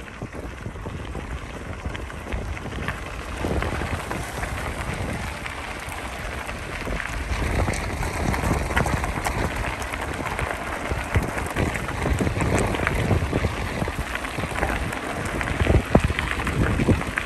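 Bicycle tyres crunching and crackling over a loose gravel track, with wind rumbling on the microphone.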